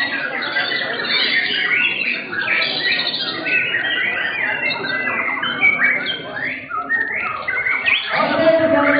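Several white-rumped shamas (murai batu) singing at once in contest cages: a dense, overlapping stream of quick rising and falling whistled phrases.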